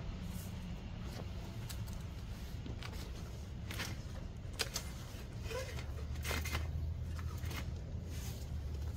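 An old 26-inch Schwinn mountain bike being lifted and turned by hand, its parts giving scattered light clicks and rattles over a steady low rumble.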